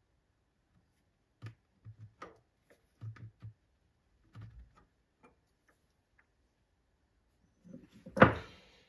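Light metal clicks and knocks from a hand working the clamping lever of a mini lathe's quick-change tool post, then one louder metal clank near the end.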